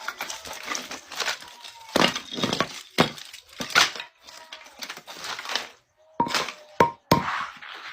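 Firewood being broken and handled: a string of irregular cracks and knocks, with a few sharper, ringing hits near the end.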